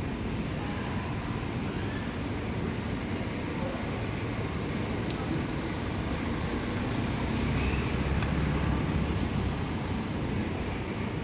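Steady low rumble of road traffic, swelling as a vehicle passes about eight seconds in.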